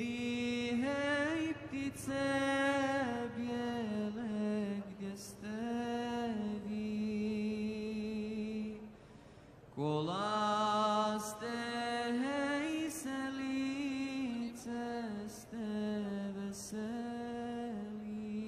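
A solo male voice chanting a slow, drawn-out melody in a religious style, holding long notes with slow turns of pitch, with a short pause for breath about nine seconds in.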